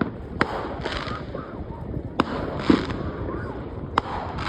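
Fireworks going off: three sharp bangs about a second and a half to two seconds apart, each followed by a short crackle.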